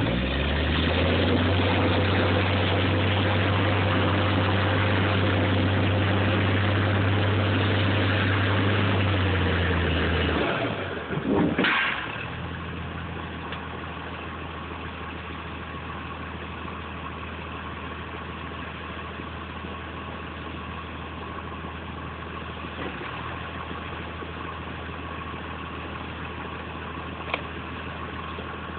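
Cat 535C grapple skidder's diesel engine running loud and steady for about ten seconds, then falling away. A sharp knock comes about twelve seconds in, after which the engine runs quieter and steady as the machine moves off.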